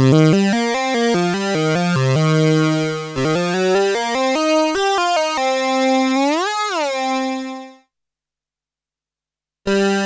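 Behringer Poly D analog synthesizer playing a run of quick notes, then a held note that bends up in pitch and back down, fading out. After a short silence, a new sustained synth sound starts near the end.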